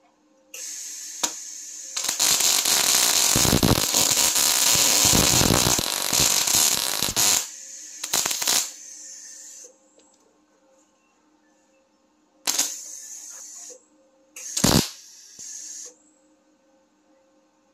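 MIG welder arc crackling and spitting, running on CO2 shielding gas at about 80 amps: one long weld of about five seconds, then several short bursts of a second or so. A low steady hum sits underneath between the welds.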